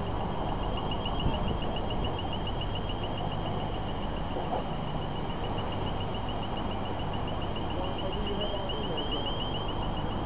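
Steady urban background noise of distant road traffic, with a high-pitched rapid chirping repeating several times a second over it.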